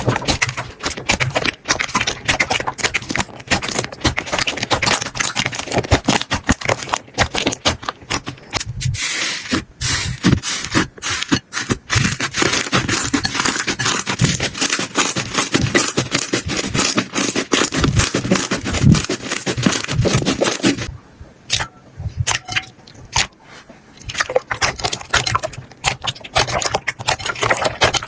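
Slime being squished and pressed by hand: a dense, rapid crackling of small clicks and pops, dropping off for a few seconds about two-thirds of the way through before picking up again.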